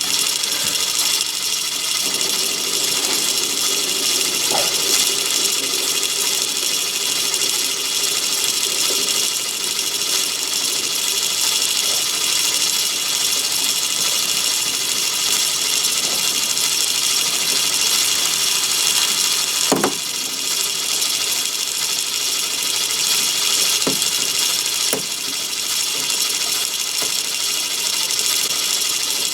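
Myford ML7 lathe running steadily, a dense mechanical whine of many tones, with a few short sharp clicks along the way.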